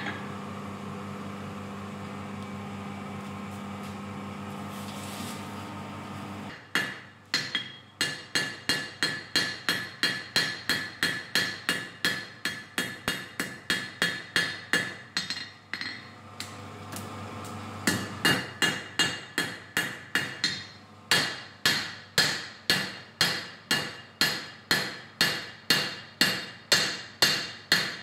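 Hand hammer striking hot steel on an anvil while forging a knife blank: sharp ringing blows at about two to three a second, in several runs broken by short pauses. For about the first six seconds, and again in one pause, only a steady hum is heard.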